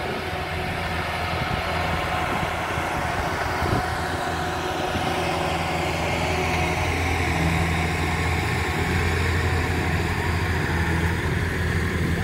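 Diesel engines of a farm tractor and a Kubota rice combine harvester idling: a steady low hum that grows slightly louder over the first few seconds.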